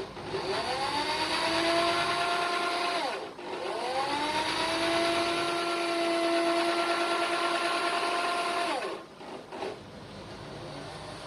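Electric drill winding 1 mm stainless steel wire into a coil spring. It runs twice: each time it revs up in pitch, holds a steady whine, then winds down. The first run lasts about 3 s and the second about 5 s, stopping about 9 s in.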